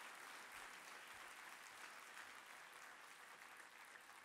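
Faint, steady applause from a large seated audience clapping at the end of a speech.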